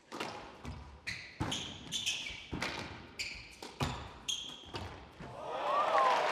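A squash rally: the ball cracks off rackets and the court walls about twice a second, echoing in the hall, with shoes squeaking on the court floor. Crowd applause and cheering swell up near the end as the point is won.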